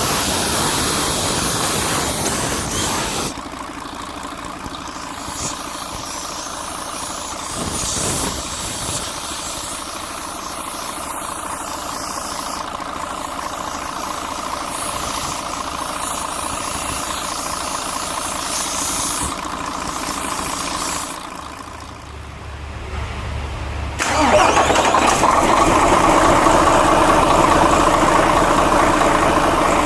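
Mercedes-Benz six-cylinder V diesel engine running. About two-thirds of the way through it goes quieter and a low hum comes in, then a few seconds later the engine sound turns suddenly louder and stays so.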